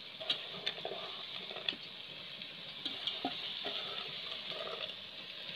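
Soaked basmati rice tipped from a bowl into a pressure cooker of hot masala, against a quiet sizzle, with a few light taps and scrapes of the bowl and wooden spoon against the pot.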